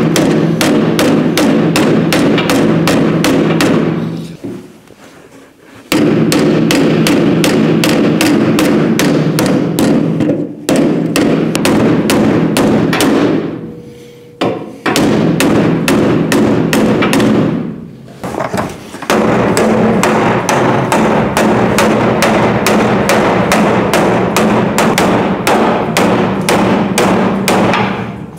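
Hammer beating on the sheet steel of a 1970 El Camino's dented quarter panel bottom edge, straightening it: rapid blows, about four a second, with the panel ringing under them. The blows stop briefly three or four times.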